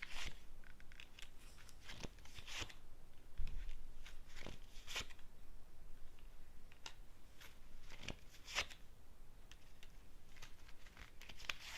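Tarot cards being shuffled and drawn by hand: scattered short rustles and swishes of card stock, with pauses between them.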